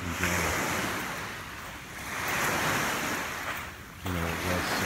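Small waves washing onto a shell-and-gravel beach, the wash swelling and fading twice.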